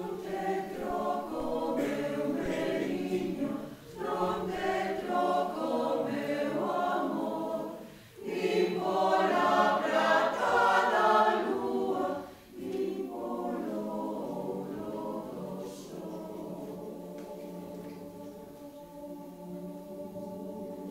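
Mixed choir of men and women singing a lullaby in phrases with short breaks between them, loudest about eight seconds in. From about thirteen seconds on, the choir sings a softer, long held chord.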